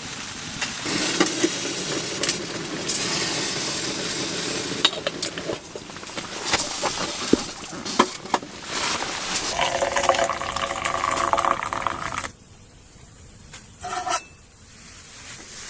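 Water being poured into a vessel, with scattered clinks and knocks of cookware. A ringing tone sounds for a couple of seconds past the middle, then things go quieter.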